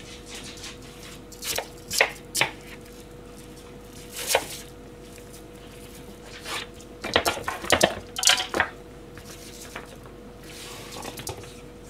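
A kitchen knife chopping food on a plastic cutting board: irregular sharp knocks, with a quick run of them about seven to eight and a half seconds in. A faint steady hum runs underneath.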